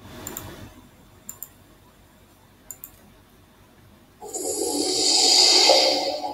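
Three quick double-clicks of a computer mouse. Then, about four seconds in, an embedded intro video's electronic music starts loudly, swelling to a peak and easing off.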